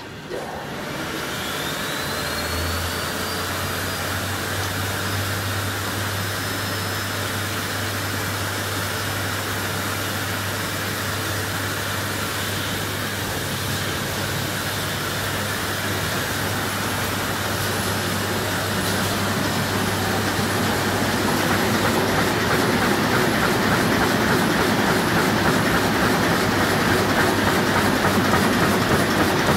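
Heidelberg Speedmaster SM74 five-colour sheetfed offset press started from its control panel. A click and a rising whine as the drive spins up lead into a steady running hum. About twenty seconds in, the mechanical running grows louder and busier, with a fast even rhythm.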